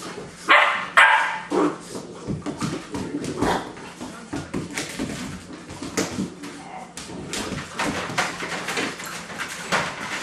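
German Shorthaired Pointer puppies play-fighting, with yips, short barks and whimpers; two loud yelps come about half a second and a second in, then quicker, fainter yips follow.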